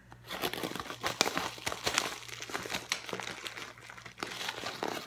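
Crumpled kraft paper bag crinkling and rustling as hands rummage inside it, with many small sharp crackles.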